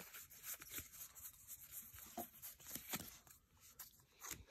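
Faint handling of a stack of trading cards: soft rustles and a few light clicks as the cards are shifted in the hands and set down.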